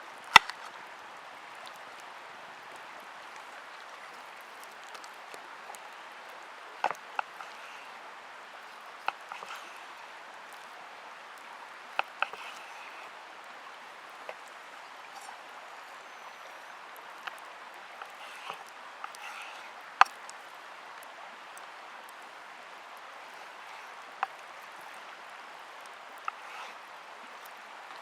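Steady hiss of food cooking in a cast iron pan over a campfire, with short, sharp clicks every few seconds, the loudest about twenty seconds in.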